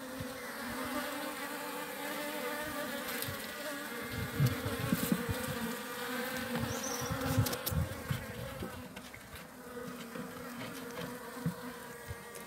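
A colony of honeybees buzzing over an opened wooden hive, a steady hum of many bees together. A few low thumps come in the middle, from the hive frames and phone being handled.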